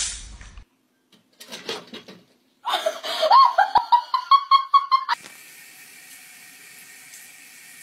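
A brief sharp noise at the very start, then a person laughing in quick repeated bursts for about two seconds. After that comes a steady hiss of water running from a tap.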